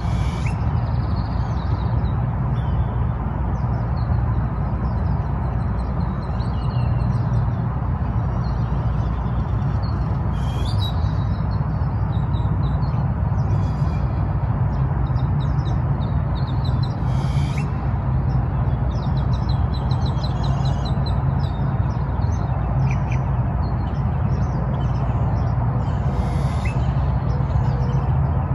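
Several birds chirping and trilling at intervals over a steady low background rumble.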